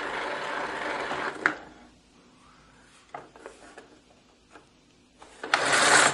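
Spring-driven mechanism of a See 'n Say 'The Farmer Says' talking toy whirring as it runs down, stopping with a click about a second and a half in. A few faint plastic clicks follow as the pointer is set by hand. Near the end the lever is pulled and the mechanism whirs up loudly again.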